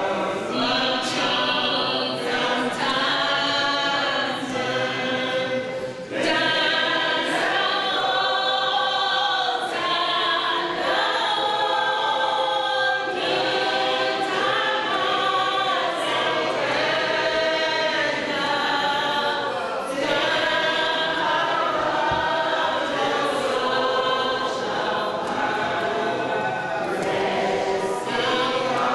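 A group of men and women singing together as a choir, with a brief pause about six seconds in.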